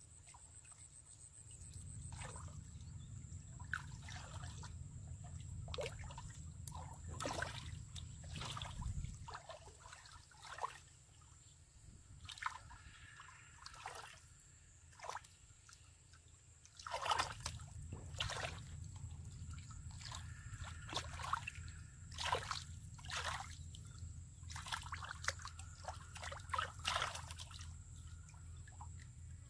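Shallow muddy water sloshing and splashing in short, irregular bursts as hands and legs churn through it.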